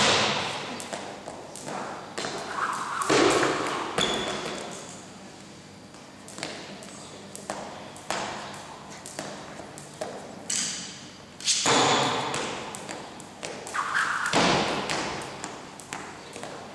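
Jump rope slapping a hard sports-hall floor and sneakers landing during a skipping routine: an irregular run of sharp slaps and thuds, each ringing out in the echo of the large hall.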